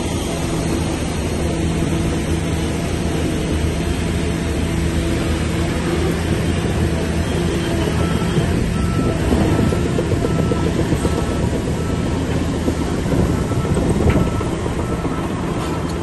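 Heavy diesel earthmoving machinery running steadily under load, with rough crunching and clatter over the engine and a sharp knock near the end. A faint beep repeats about once a second from about halfway.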